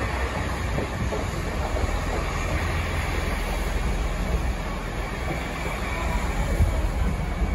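Passenger multiple-unit train running along the tracks past the platform, a steady low rumble of wheels on rail.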